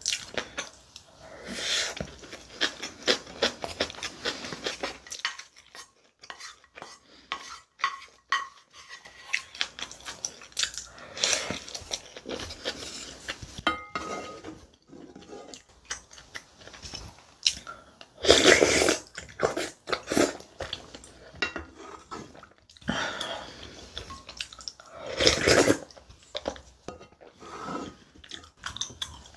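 Close-miked eating sounds: a wooden spoon scraping and knocking against a ceramic bowl and soup pot, with chewing in between. There are a few louder noisy bursts, about two-thirds of the way through and again near the end.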